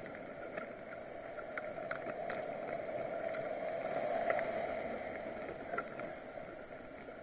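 Steady rushing road and wind noise of a bicycle ride picked up by a bike-mounted action camera, with scattered light clicks; it swells about halfway through and then eases off.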